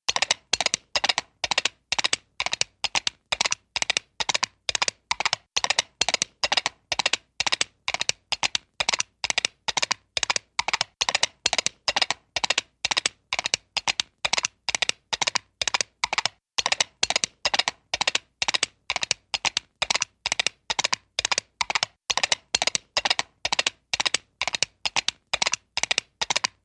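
Cartoon-style horse hooves galloping sound effect: a steady, unbroken run of sharp clip-clop clicks, about three to four a second.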